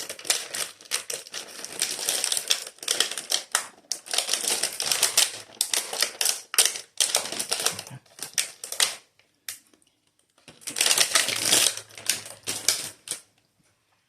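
Pastry packaging crinkling and rustling in rapid crackly runs, stopping briefly about ten seconds in, then one more burst.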